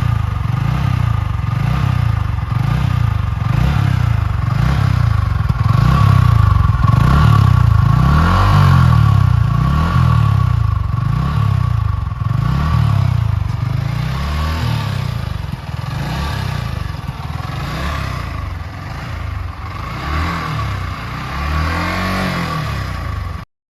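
Yamaha R15's single-cylinder engine being revved again and again, each rev rising and falling in pitch about every one to two seconds. The sound cuts off suddenly near the end.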